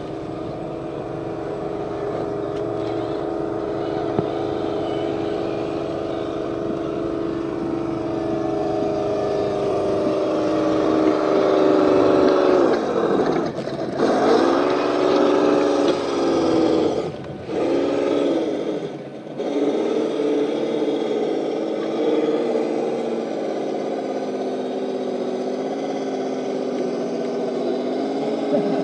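RC crawler truck's motor and gear train whining steadily. About halfway through, the pitch drops away and climbs back three times as the throttle is eased off and reapplied.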